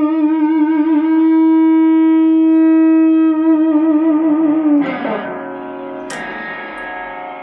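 Tokai Love Rock LS214 electric guitar sustaining one long note with vibrato, held steady in the middle. About five seconds in, the pitch slides down, and a second later a new note is picked and rings out, fading.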